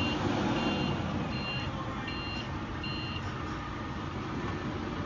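Cat forklift's reversing alarm beeping, about one beep every three-quarters of a second, over a steady low rumble; the beeps stop about three seconds in.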